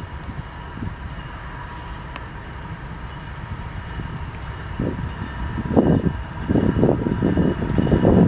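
CSX freight train Q311 approaching, a low rumble that grows steadily louder, with rough noisy surges from about five seconds in as it draws near.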